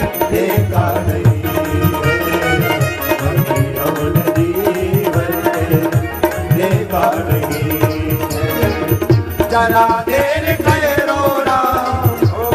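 Instrumental passage of a Hindi devotional bhajan: a steady hand-drum beat under a melody line. A gliding melodic voice or instrument line comes in about ten seconds in.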